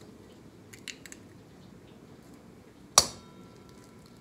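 An egg rapped once, sharply, on the rim of a hammered metal mixing bowl about three seconds in, the bowl ringing briefly afterwards. Faint clicks of eggshell in the fingers come about a second in.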